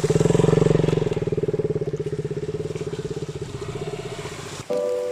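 KTM Duke 200 single-cylinder motorcycle engine running with a rapid pulsing exhaust beat, loudest about half a second in and easing off. It cuts off shortly before the end, where music with held tones begins.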